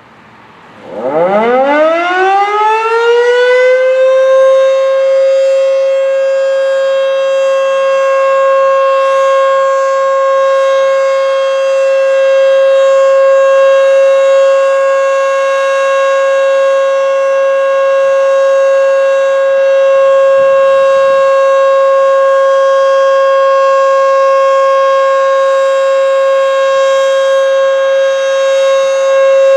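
Federal Signal Model 5 electromechanical siren winding up from a low growl to full speed over about three seconds, then holding one loud, steady wail. This is a tornado siren being sounded for a test.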